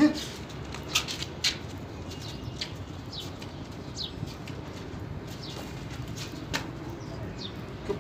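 Small birds chirping, short falling chirps every second or two, over a steady outdoor hiss, with a few sharp slaps about a second in and another near the end.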